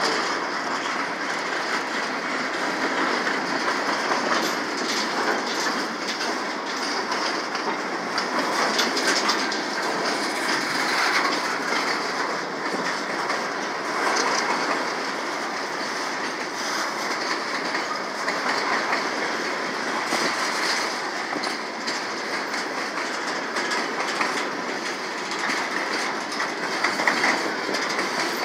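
Freight train cars rolling past, steel wheels clattering steadily over the rail joints.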